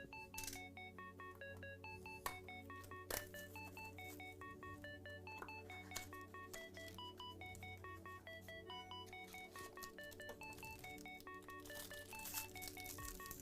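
Background music: a plinking melody of short, quick notes over a steady low drone, with scattered faint clicks and crinkles.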